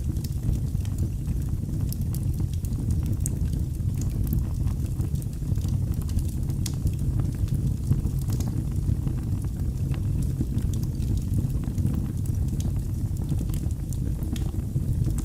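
Wood fire burning in a fireplace: a steady low rumble with frequent small crackles and pops scattered through it.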